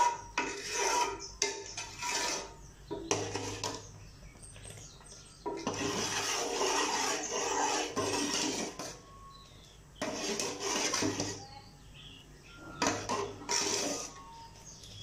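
Metal ladle scraping and knocking against the sides and bottom of a metal pot while stirring thickening semolina kheer, in irregular bursts a second or two long.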